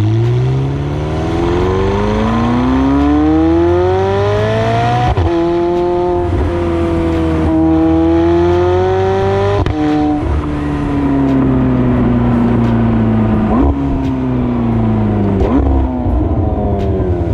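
McLaren 720S twin-turbo V8 on its stock, non-sport exhaust, under hard acceleration. The revs climb for about five seconds, then hold through two gear changes. After that they fall steadily as the car slows, with two sharp rev blips on downshifts near the end.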